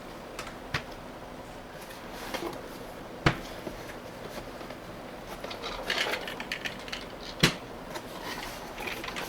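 Objects being handled and set down on a hard surface: a light click, two sharp knocks about four seconds apart, and rustling with small clatters between them.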